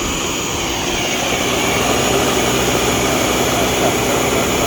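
Electric blender running steadily at full speed, a high motor whine over the churn of mango pieces being blended.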